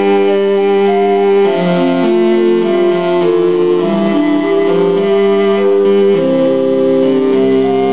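Instrumental music: a slow melody of held notes over long sustained chords.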